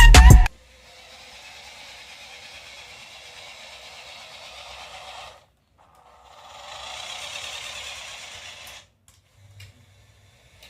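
Background music cuts off about half a second in. A faint mechanical whirring noise then runs for about five seconds, stops briefly, and runs again for about three seconds before stopping.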